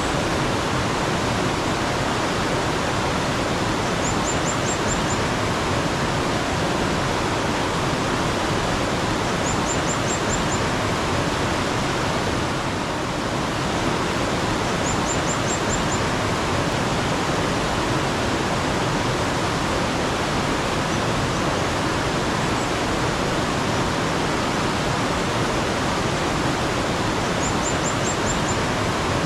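Mountain stream water rushing steadily. A small bird gives a faint, high call of about five quick notes four times over it.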